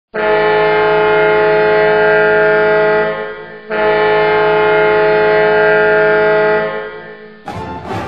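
Minnesota Golden Gophers hockey goal horn: two long, steady horn blasts of about three seconds each, separated by a brief gap. Near the end the goal song music kicks in.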